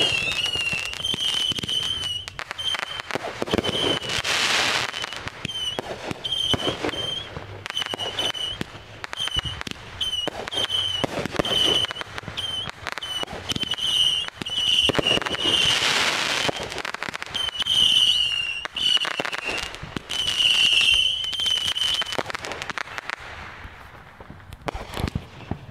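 A consumer fireworks cake firing a string of aerial shots that burst overhead with bangs and pops, the loudest around two-thirds of the way through. A high whistling tone sounds on and off through most of the volley. The shots stop a couple of seconds before the end.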